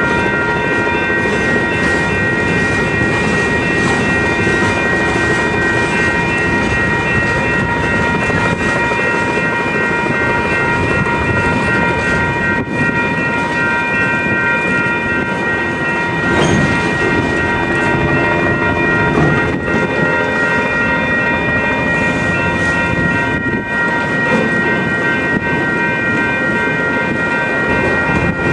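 Freight train rolling through a grade crossing, with the crossing bells ringing steadily over the rumble and clatter of the cars.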